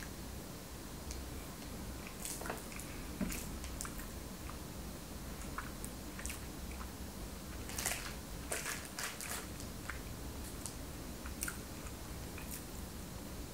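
A person chewing a donut: wet mouth clicks and lip smacks, bunched together a couple of seconds in and again just past the middle.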